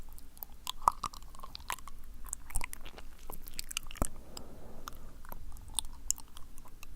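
Wet, sticky mouth sounds: irregular tongue and lip clicks and smacks, several a second, made close to the ear.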